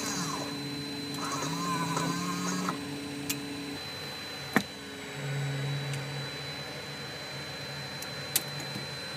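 Cockpit sounds in a Beechjet 400A on the ground: a steady high-pitched whine with low hum under it, and an electric motor whirring with a wavering pitch for the first few seconds. Three sharp clicks come about three, four and a half and eight seconds in, as the crew works the thrust levers and buttons on the centre pedestal.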